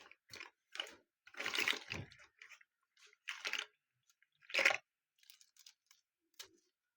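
A squishy fidget toy being squeezed and worked by hand: a string of short, wet squishing sounds at irregular intervals, the longest about a second and a half in and a sharp one near five seconds, then a few fainter ones.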